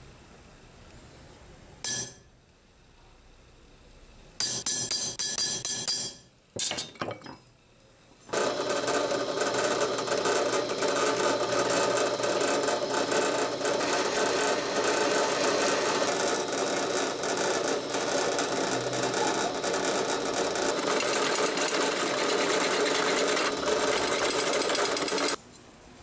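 A single sharp metal tap, then a clatter of metal clicks, then a twist drill bit boring steadily into a 5160 spring-steel knife blank clamped in a vise. The drilling runs for about seventeen seconds and cuts off suddenly near the end.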